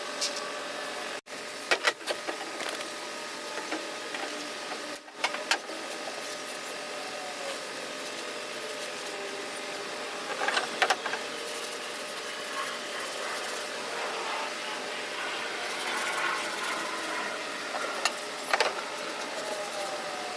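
A steady mechanical hum with several sharp clicks and knocks scattered through it, like things being handled.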